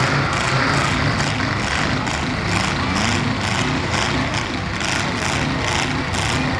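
Demolition derby cars' engines running at idle, a steady, loud engine drone with no revving.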